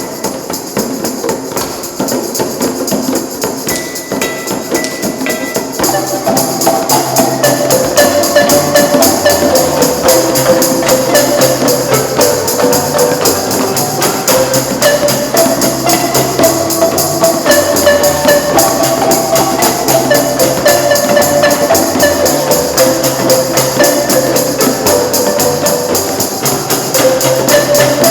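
Marimba ensemble music: melodic marimba lines over a steady, fast rattling percussion that keeps time. Low bass notes come in about six seconds in, and the music gets louder.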